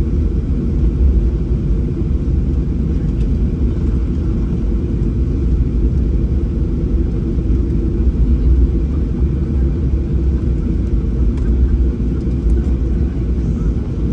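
Steady low rumble inside the cabin of a Boeing 737-800 taxiing after landing, its CFM56 engines at idle.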